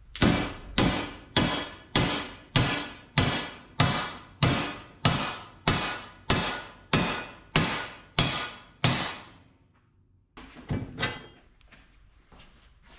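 Hammer striking steel plate in a steady rhythm, fifteen ringing blows about two every second, then a pause and a few lighter taps: shaping a scored bend in thick sheet steel.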